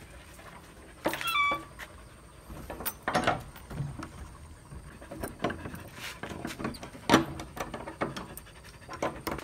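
Dog giving a short high whine about a second in, followed by scattered footsteps and knocks.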